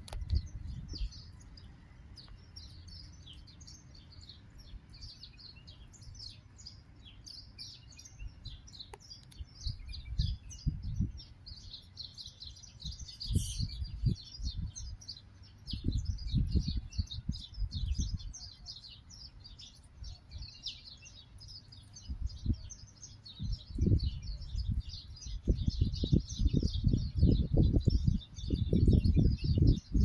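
A flock of house sparrows chirping continuously, many short overlapping chirps. From about ten seconds in, irregular low rumbles come and go and are loudest near the end.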